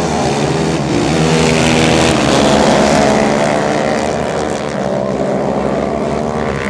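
A pack of racing quads (ATVs) at full throttle just after the start, several single-cylinder engines revving high together with their pitches rising and overlapping, loudest about two to three seconds in.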